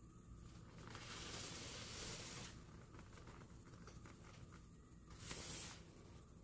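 Near silence: faint hiss with light rustling, a little louder for a second or two early on and again briefly about five seconds in.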